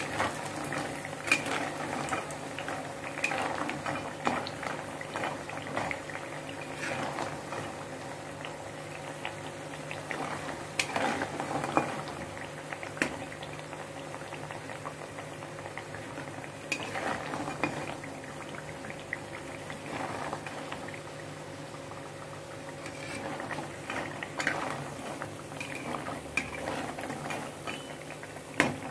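Dried lentil dumplings (badi) frying in mustard oil in a wok: a steady bubbling sizzle with scattered sharp clicks.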